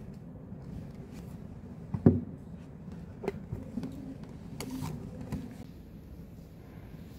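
Objects handled on a wooden desk: a thump about two seconds in, the loudest sound, then a few lighter knocks and rustles.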